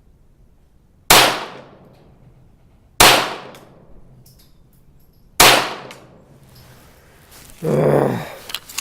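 Three .22 rimfire pistol shots from a CZ-75B Kadet, about two seconds apart, each a sharp crack with a short ringing tail, followed near the end by a brief low voice sound.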